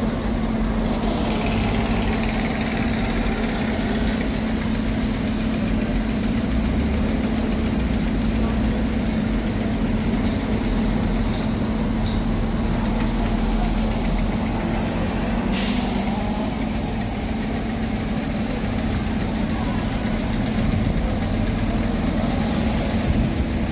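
Bus engine running with a steady low hum and rumble. A thin high whine comes in around the middle and fades out, with a single click partway through.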